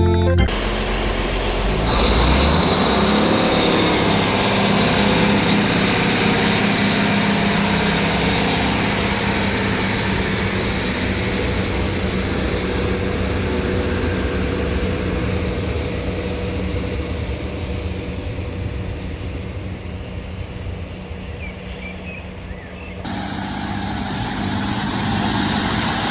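A train running through the station: a steady engine drone with a high whine that climbs in pitch about two seconds in. The sound changes abruptly near the end, as at a cut to another recording.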